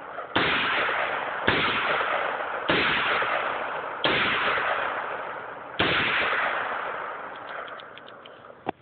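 Five shots from a BCM mid-length AR-15 carbine, fired one at a time at an uneven pace of roughly one every one to two seconds. Each shot rings out with a long echo that fades over about a second. A light click comes near the end.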